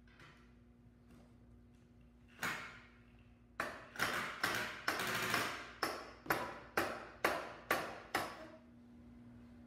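A mallet knocking the pieces of a cutting-board glue-up held in pipe clamps. One strike comes about two and a half seconds in, then a run of about a dozen strikes at roughly two a second, each ringing briefly.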